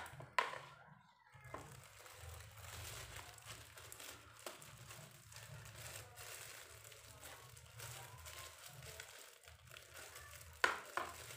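Thin clear plastic bag crinkling as crumbly bait mixture is spooned into it and the bag is handled, with a sharp tap of the metal spoon near the start and another near the end.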